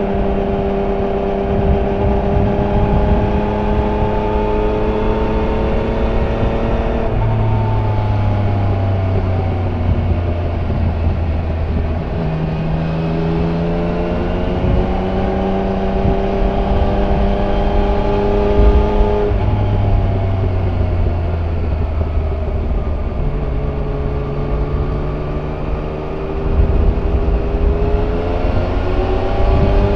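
Yamaha Niken GT's 847 cc inline three-cylinder engine through its stock exhaust, heard on board while riding. The engine note climbs slowly as the bike pulls, then drops in pitch a few times, about seven seconds in, near the middle and again near the end, before rising once more.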